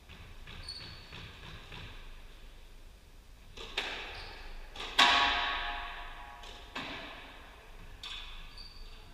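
Squash ball being struck back and forth in a rally: sharp smacks of racket and ball off the walls, echoing in the court, the loudest about five seconds in with a ringing tail. A short squeak of court shoes on the floor comes near the start and again near the end.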